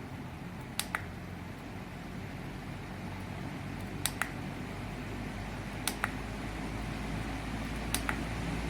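Air Choice 12-inch rechargeable battery-powered fan running with a steady rushing of air that grows gradually louder. Four quick double clicks sound about two seconds apart.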